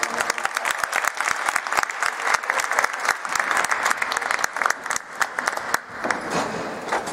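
Audience applauding: a dense patter of handclaps that thins out near the end.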